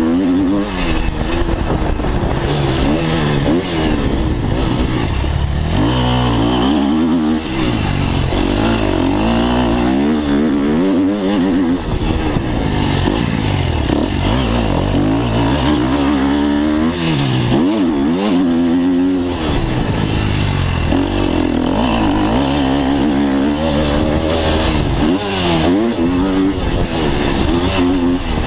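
Off-road motocross bike engine heard close up from the rider's onboard camera, revving hard and easing off again and again as it accelerates and slows, its pitch climbing and dropping every second or two.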